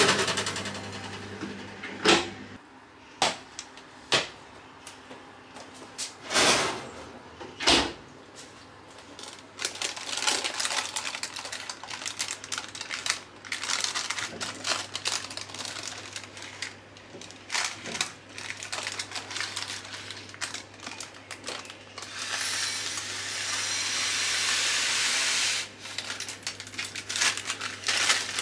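A few sharp knocks of the oven rack and door as a tart tin goes into the oven. Then a long stretch of baking paper crinkling, with dry rice blind-baking weights rattling, as the paper of rice is lifted from the crust. This is followed by a steady hiss of several seconds as the rice is poured into a jar.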